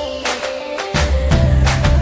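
Upbeat background music with a steady drum beat and a bass line that drops out and comes back about a second in.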